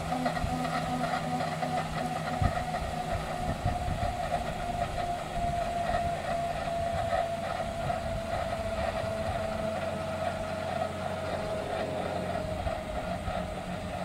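Fairchild-Hiller FH1100 helicopter winding down after engine shutdown. The Allison 250 turboshaft's whine falls slowly in pitch while the main and tail rotors coast to a stop.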